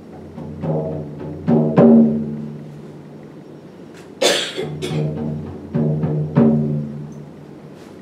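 Large rawhide frame drum struck with a beater, a handful of unevenly spaced strokes, each ringing out with a deep, humming tone that fades over a second or two. A brief rasping noise sounds about four seconds in.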